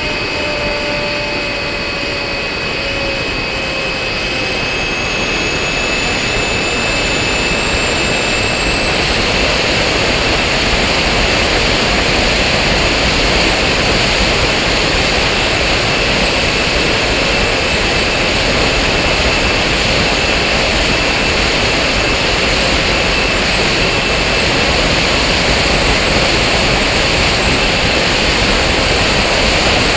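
Model airplane in flight, heard from its onboard camera: a motor and propeller whine whose pitch shifts during the first several seconds, then gives way after about nine seconds to a steady rush of wind and propeller noise.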